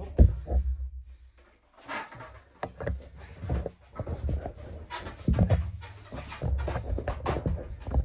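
Breathing and handling noise close to a handheld phone as it is carried and repositioned, with scattered knocks and rustles.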